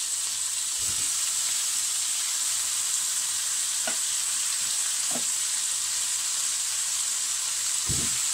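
Chicken drumsticks in a soy-based sauce frying in a nonstick double-sided fry pan: a steady sizzling hiss. A few faint knocks come through, one near the end.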